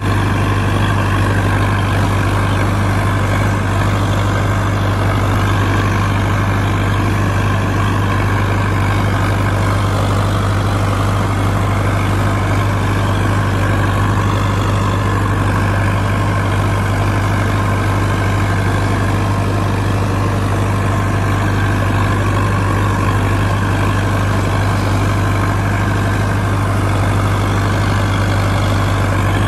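Sonalika DI 750 tractor's diesel engine running steadily under load while working a rotary tiller, heard from the driver's seat as a constant low hum.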